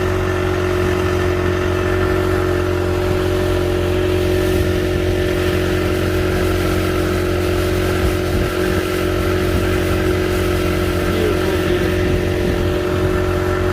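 Speedboat engine running steadily at speed, with a constant hum and rushing noise.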